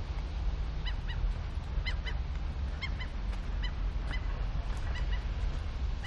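Birds calling: a dozen or so short, high, harsh calls, about two a second, over a steady low rumble.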